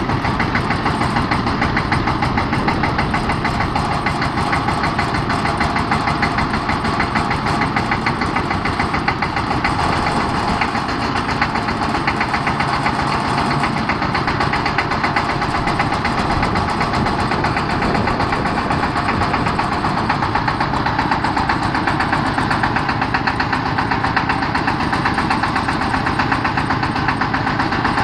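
Diesel engine of a four-wheeled boom lift running steadily while the articulated boom raises the work basket.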